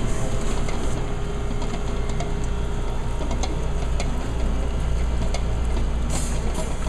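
Commercial planetary mixer running steadily, its motor giving a low, even hum as the beater creams butter and sugar in the steel bowl, with a few light clicks.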